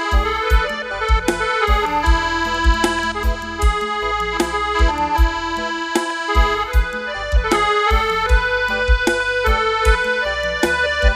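Instrumental live dance-band music: a melody with an accordion-like tone held over a steady kick-drum beat, about two to three beats a second.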